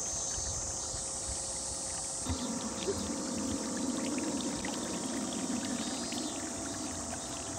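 Water noise from a radio-controlled model boat cruising, its wash growing louder a little over two seconds in, under a steady high hiss.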